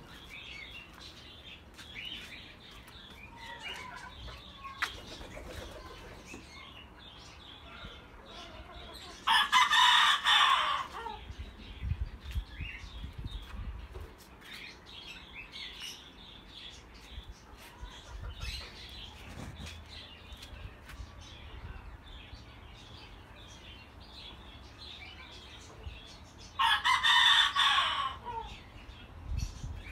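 A rooster crows twice, each crow about two seconds long and trailing off downward at the end, roughly seventeen seconds apart. Small birds chirp faintly in between.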